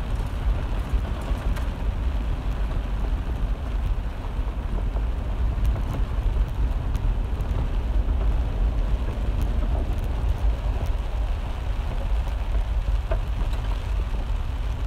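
Jeep Wrangler Unlimited driving through floodwater, heard from inside the cabin: a steady low rumble of engine and tyres with water spraying up around the vehicle, and rain hitting the windshield.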